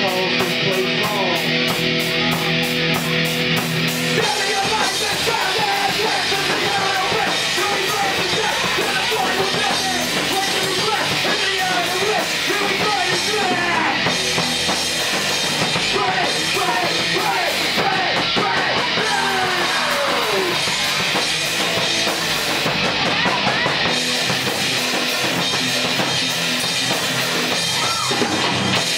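Live punk rock band playing loud: drum kit with cymbals and electric guitar, with a singer's vocals through a microphone. Held notes for the first few seconds, then a busier, denser stretch.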